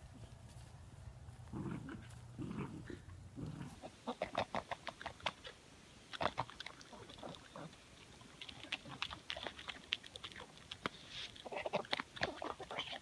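A pug eating noodles from a hand, with wet chewing and lip-smacking in quick clusters of clicks. Before that, about the first four seconds hold low dog sounds from a puppy tugging on a steer's lead rope.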